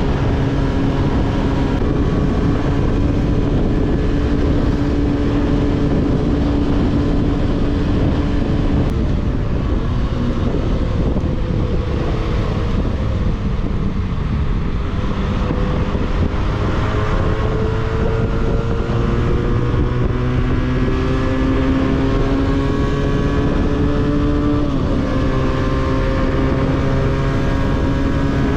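A 300 cc motorcycle engine through an aftermarket 302s exhaust, heard from on board while riding. It holds a steady cruising note, drops off about a third of the way in, then climbs steadily under throttle, with one sharp drop in pitch near the end like an upshift before it climbs again, over a heavy low rumble.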